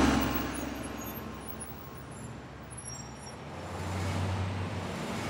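Street traffic: a motor vehicle passes close, loudest at the start and fading over about two seconds, then a low engine rumble rises near the end.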